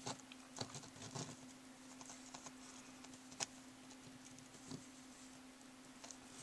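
Faint handling noises: scattered soft clicks and ticks as fingers press and pull sticky candy-strand hair on a small candy doll head, with one sharper click about halfway through, over a steady low hum.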